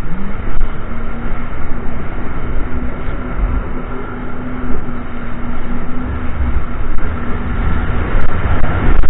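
Jet ski engine running at a steady pitch over rushing, splashing water and wind noise; the engine note climbs back up right at the start after a brief drop, then holds until it fades out about eight seconds in.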